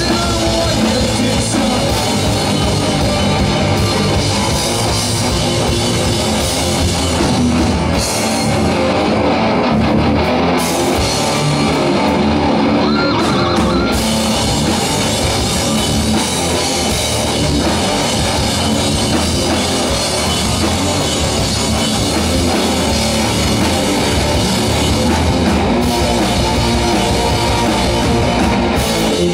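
Live rock band playing a loud instrumental passage: electric guitars over a full drum kit at steady full volume.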